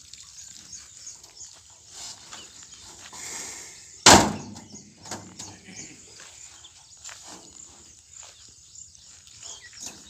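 A granite stone landing in the steel-bodied bed of a bullock cart: one loud, heavy thud about four seconds in that rings on briefly, followed by a few lighter knocks as stones are shifted in the cart.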